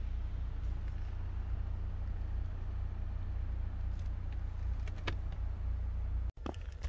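Toyota Land Cruiser 80-series inline-six running low and steady as the truck crawls along a dirt trail, heard from inside the cab as a deep rumble, with a couple of faint knocks. The sound cuts off abruptly near the end.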